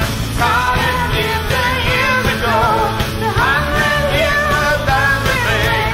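Live rock 'n' roll band playing a song, with singing over electric guitar, cellos, keyboard and drums, heard from the mixing-desk feed.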